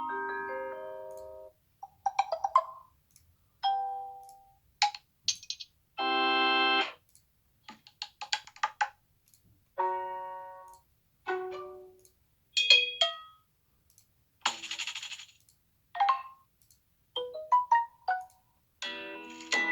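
Samsung Galaxy Note8 notification sounds previewed one after another: about a dozen short chimes, beeps and melodic jingles, each lasting around a second, with brief silent gaps between them.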